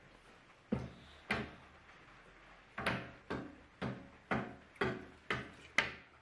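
A series of sharp knocks, each dying away quickly: two near the start, then after a pause a steady run of about two knocks a second.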